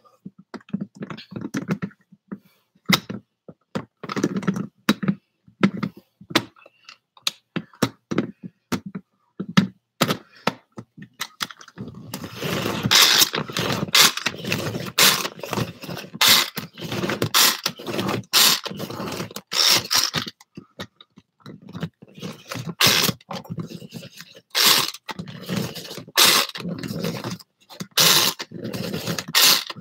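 Rotisserie chicken being chopped in a food chopper: repeated short scraping strokes and thunks, sparse at first and coming fast and close together from about halfway through.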